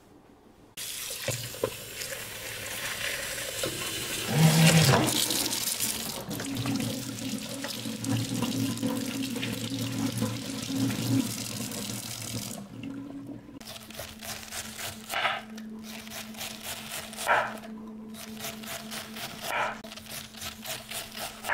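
Kitchen tap running into a sink for about twelve seconds, with the flow surging once early on. After the water stops there are a few scattered clatters over a steady low hum.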